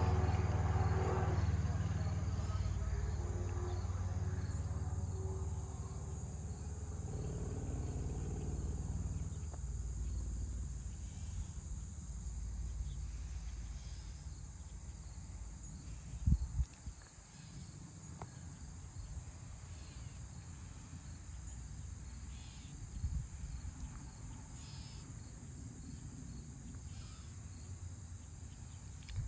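A steady, high-pitched chorus of crickets. A low vehicle rumble fades away over the first several seconds, and there is a brief low thump about halfway through.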